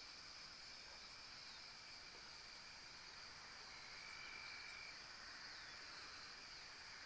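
Near silence: faint steady background hiss with a thin, steady high-pitched tone.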